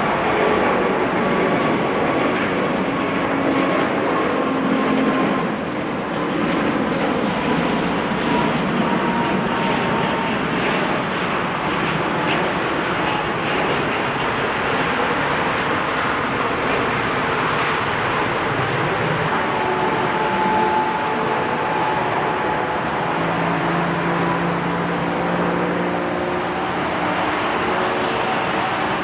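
Airbus A380's four Rolls-Royce Trent 900 turbofans at takeoff thrust as the airliner climbs out: a steady jet roar with faint whining tones slowly falling in pitch.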